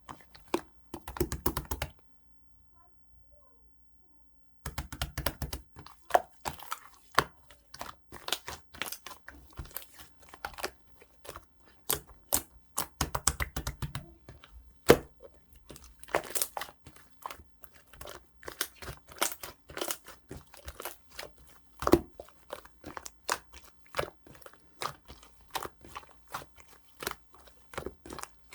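Pink slime with a clay topping being squished, stretched and poked by hand: a fast, uneven run of sticky clicks and pops, with a silent pause about two seconds in.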